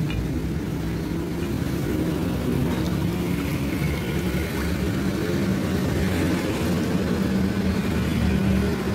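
A motor vehicle engine running steadily, a continuous low hum with no breaks.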